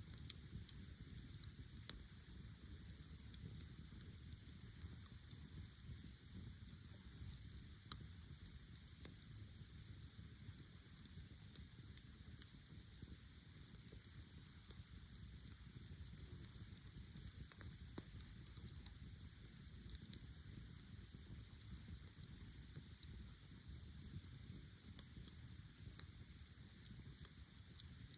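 A steady, high-pitched chorus of crickets on a warm summer night, with a few faint pops from a campfire now and then.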